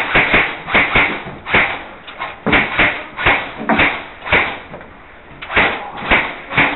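A run of sharp knocks and thuds, irregular, about two or three a second, with a short lull around five seconds in.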